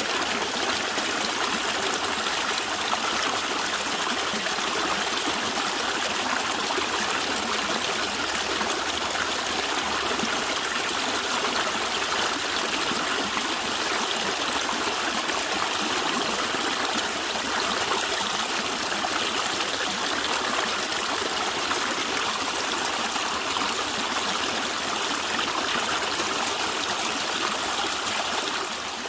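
Natural stream water flowing and gurgling steadily, with a brief dip in level near the end.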